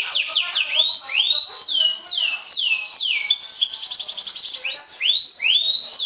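Canary singing: a run of fast repeated down-sweeping notes, then single swooping whistles that fall or rise, and a very rapid trill about halfway through.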